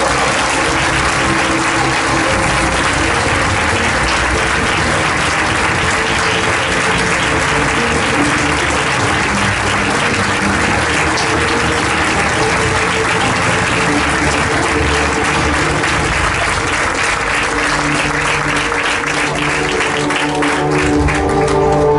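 An audience applauding steadily over music, the clapping thinning out near the end.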